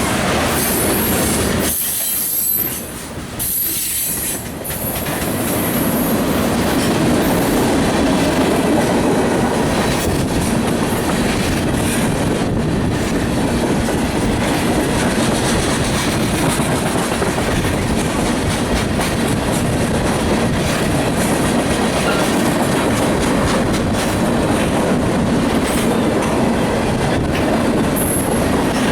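CSX freight train's cars rolling past, wheels clattering over the rail joints in a steady rush, with brief high wheel squeals near the start and near the end. The sound drops briefly about two seconds in before the steady rolling returns.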